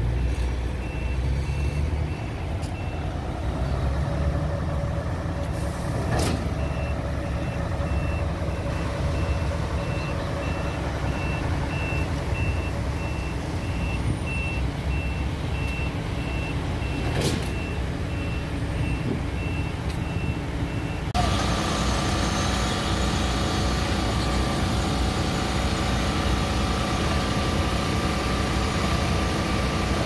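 Heavy diesel engine of a truck-mounted concrete pump running steadily at a construction site, with a reversing alarm beeping about once a second over it. About two-thirds of the way through the beeping stops and the sound changes abruptly to a different mix of machinery tones, with a sharp click twice before that.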